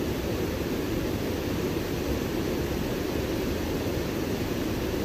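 Steady rushing of a creek waterfall pouring into a pool.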